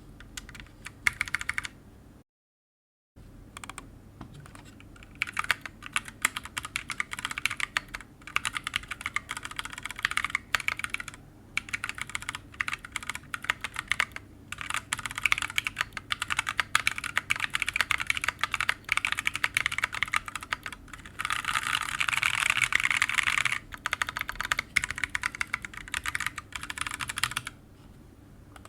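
Typing on a Reviung41 40% keyboard fitted with Shogoki tactile switches (65 g springs) and PBT OEM-profile keycaps, on an FR4 plate in an open case with no sound dampening. Quick runs of keystrokes broken by short pauses, with one long unbroken flurry about two-thirds of the way through.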